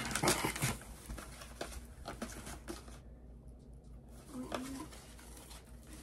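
Crinkling of plastic-wrapped packages and scraping of cardboard as hands rummage through a cardboard box of supplies, loudest in the first second, then lighter scattered rustles and taps.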